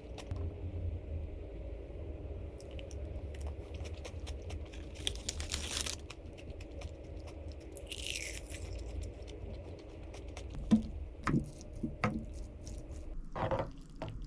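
Objects being handled: scattered clicks and knocks with a few short bursts of rustling, over a low steady hum.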